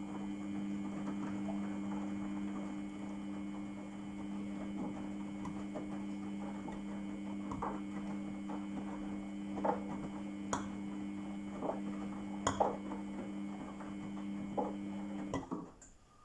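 Samsung ecobubble washing machine running mid-wash: a steady motor hum while the drum turns, with the load and water swishing and knocking now and then. The hum stops abruptly about a second before the end.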